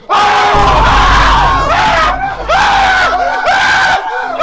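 Several young men screaming and yelling at once in sudden alarm, breaking out loudly right at the start, with a low rumble under the first three seconds.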